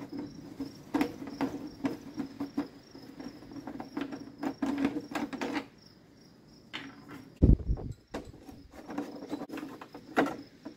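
Clicks and scrapes of a metal tool being worked against the plastic housing and wheel of an old John Deere pressure washer, with one heavy thump about seven and a half seconds in. Insects chirr steadily in the background.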